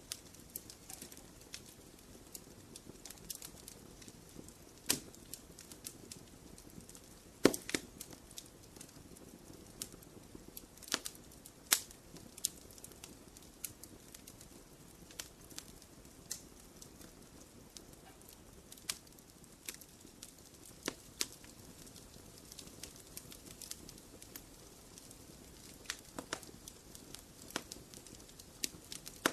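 Wood fire crackling in a fireplace: irregular pops and snaps over a soft low rustle of burning, with one louder snap about a quarter of the way in.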